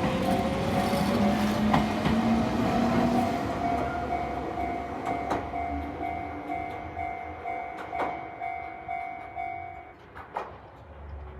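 Level-crossing alarm ringing its distorted, cracking Chichibu-type electronic tone at about two strokes a second, with an electric train of the Jōmō Electric Railway passing and fading away, a few wheel clacks among it. The alarm stops about ten seconds in.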